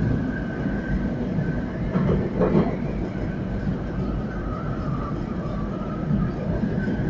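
Tram running along the street track, heard from inside the car: a steady low rumble of wheels on rails under a high whine that drifts slightly in pitch, with a couple of knocks about two and a half seconds in.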